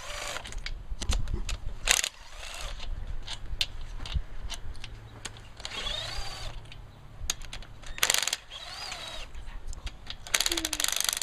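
Irregular clicks, knocks and clatter of hand tools and metal engine parts being handled during an engine teardown.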